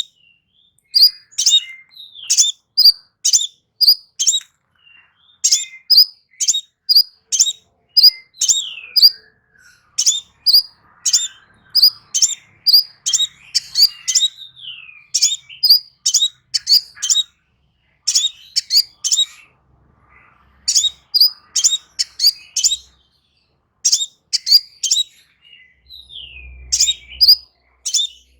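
Small songbird singing loud, fast phrases of sharp, high chirping notes, each phrase a second or two long, separated by short pauses, with a few downward-sliding notes mixed in.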